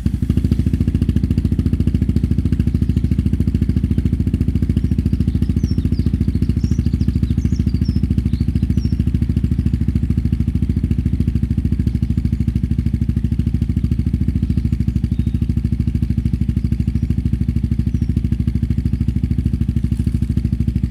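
Yamaha XT660Z's single-cylinder four-stroke engine running at a steady speed through a Dominator aftermarket exhaust with no dB killer fitted: a loud, even, low pulsing exhaust note that holds without revving.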